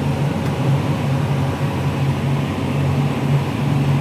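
Case IH Magnum 340 tractor's diesel engine running steadily under load while pulling a plough in a working gear, a constant low drone.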